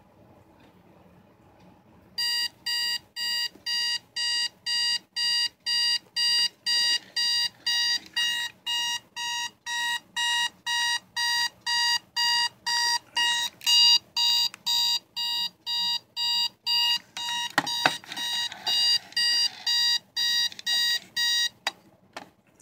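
Equity Model 1010 digital alarm clock's alarm beeping, a steady string of about two short beeps a second that starts about two seconds in. Near the end a few clicks come as its buttons are pressed hard, and the beeping stops.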